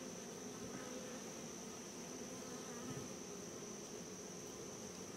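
A honey bee colony buzzing in a steady, even hum, the bees stirred up as their comb is cut out of the wall cavity they nest in. A steady high-pitched tone sounds over it.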